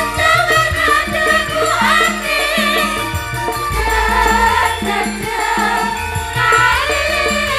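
Campursari music played live through a PA system: several women singing together in wavering Javanese-style melody over gamelan, kendang drum and a steady bass line.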